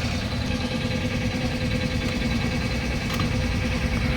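A motor running steadily with a low, even hum, and one faint click about three seconds in.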